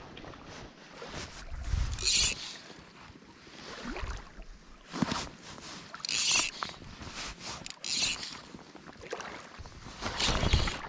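Canoe paddle strokes in lake water, a short splash about every four seconds, with a few light knocks in between.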